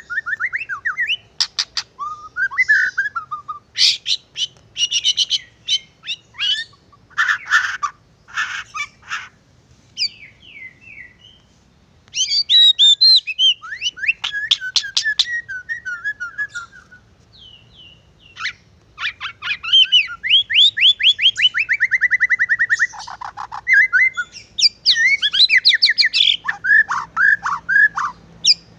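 White-rumped shama (murai batu) singing a long, varied song of clear whistles, fast trills and chattering runs, broken by two short pauses. In the second half comes a long trill of rapid notes falling in pitch.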